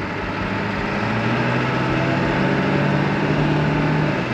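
7.3 L Powerstroke turbo-diesel V8 in a 1972 Ford F100 pulling the truck along, heard from inside the cab. The engine note climbs and grows louder from about a second in, then eases off just before the end.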